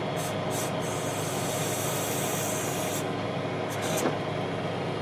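Tractor engine running steadily, driving a PTO-powered backhoe with its own hydraulic pump while it digs. A high hiss comes in about a second in and lasts about two seconds, with several short hisses around it and a light knock about four seconds in.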